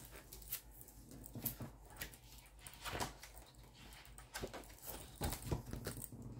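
Faint scattered clicks and paper rustles from a disc-bound game book being handled, its pages flipped and the book laid on a tabletop.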